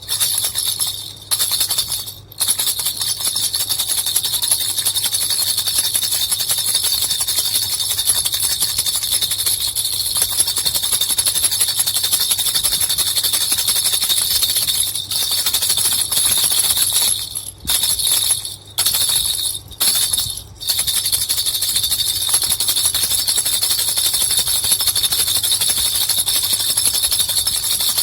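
Baby rattle with two little bells shaken continuously, a dense, steady jingling. It breaks off briefly twice near the start and four times in quick succession a little past halfway.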